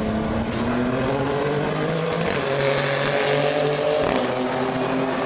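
Engines of GT race cars, a Renault R.S.01 and a Ferrari 488 among them, running hard through a corner. Several engine notes overlap, and one rises in pitch around the middle.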